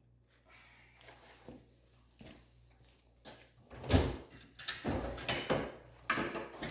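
Hand tools clanking and knocking against metal while working the front brake caliper loose on a quad. A loud knock comes about four seconds in, followed by more clunks and scraping.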